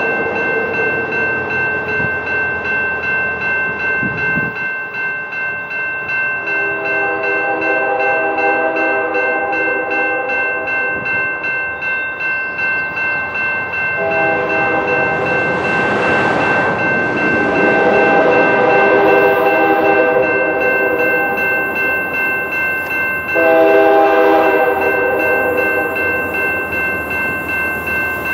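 Grade-crossing warning bell ringing steadily while the approaching CP ES44AC locomotive sounds its multi-note horn in several long blasts, each drawn-out, with the last blast near the end the loudest as the train comes closer.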